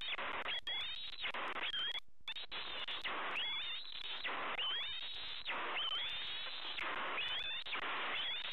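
Young bald eagle calling for food: runs of high, thin chirping whistles with rising notes, repeated about once a second, over a steady rushing hiss.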